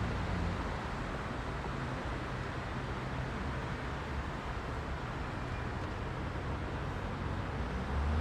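Heavy rush-hour road traffic: a steady wash of engine and tyre noise with a low engine drone, which grows louder near the end as a vehicle passes close.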